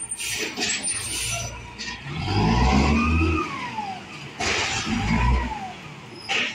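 Diesel engine of a 1999 Peterbilt 320 side-loader garbage truck revving up and back down twice while stopped, with a third rev starting near the end. Short bursts of hiss and clatter come in between the revs.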